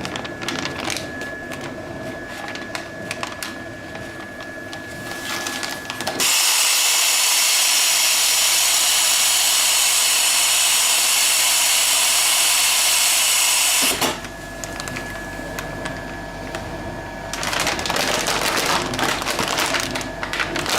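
Horizontal continuous band sealer running with a steady whine and light rattle, then a loud, even hiss of compressed gas blowing from its bag-filling nozzle for about eight seconds, set to its longest filling time, which cuts off sharply. Near the end a dense crackling rustle, as of a bag.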